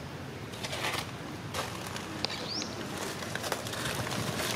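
Outdoor ambience with a few short, high, rising chirps about halfway through, and scattered brief rustles and clicks.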